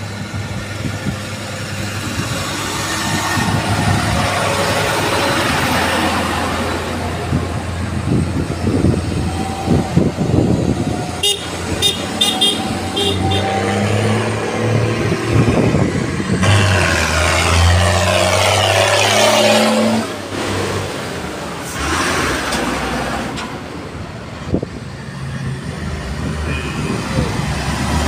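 Diesel tractor engines running as a line of tractors drives up the road toward and past the listener. A string of short horn toots sounds about eleven to thirteen seconds in.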